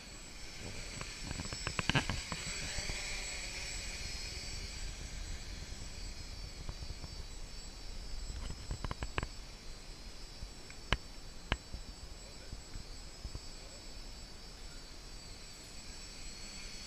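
F450 quadcopter's brushless motors giving a steady high-pitched whine, with a cluster of sharp clicks about two seconds in and a few single clicks later on.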